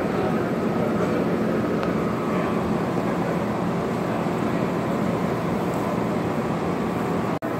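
Steady background din inside a livestock barn: a continuous rushing noise with a faint hum under it, cutting out for an instant near the end.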